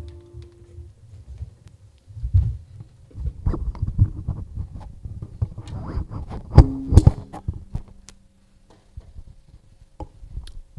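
Handling noise from a live microphone being picked up and gripped: irregular low thumps and rustles, with a louder pair of knocks a little past the middle. The last guitar chord of the song dies away at the very start.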